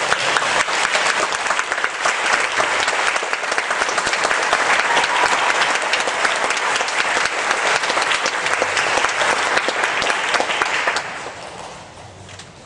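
Concert audience applauding: dense, steady clapping that dies away about eleven seconds in.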